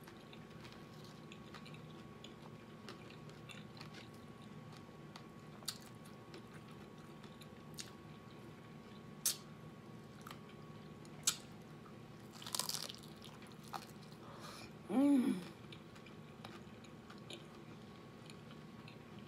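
Close-miked chewing of a crunchy hard-shell chicken taco, with a sharp crunch every few seconds. About fifteen seconds in comes a short hummed "mm" that falls in pitch.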